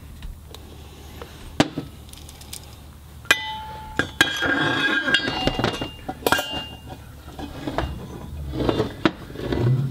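Steel differential parts and tools handled on a steel workbench: a series of sharp metallic clinks, several of them ringing on, the loudest about three to four seconds in.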